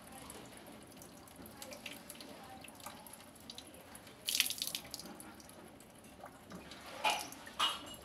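Water dripping and splashing out of a washing machine's rubber drain hose as it is handled, with one loud splash about four seconds in and two shorter ones near the end.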